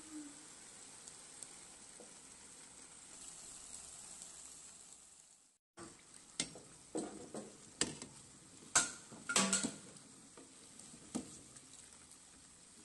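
Chebakia pastries frying in hot sunflower oil in a steel pan, a steady sizzle. The sound drops out briefly about halfway, then a metal utensil clinks and knocks against the pan several times as the pastries are turned and lifted.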